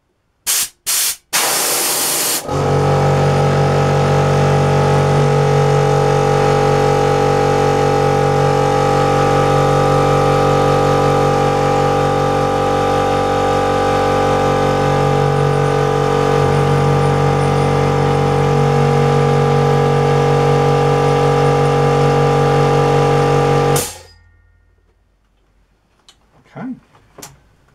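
A few short blasts of compressed air from a blow gun, then the Parkside 24-litre air compressor's electric motor starts about two and a half seconds in and runs loudly and steadily, charging the tank, for about twenty seconds before cutting off abruptly. A few faint clicks follow near the end.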